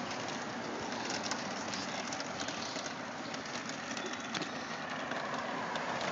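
Battery-powered children's ride-on quad driving along a concrete sidewalk: a steady rolling noise from its hard plastic wheels and small electric motor, with scattered small clicks.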